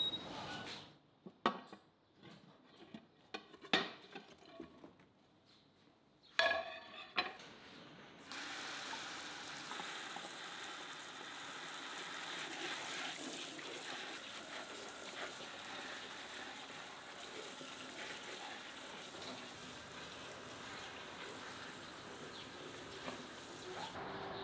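A few scattered knocks and clatters, then about eight seconds in the kitchen tap is turned on and water runs steadily, splashing over vegetables in a sink, until it stops shortly before the end.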